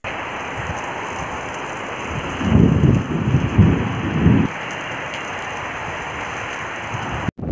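Heavy rain pouring down, a steady loud hiss, with low rumbling swells a couple of seconds in that last about two seconds.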